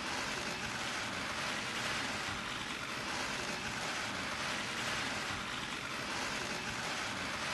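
Many press photographers' camera shutters clicking rapidly and overlapping into a steady, dense clatter.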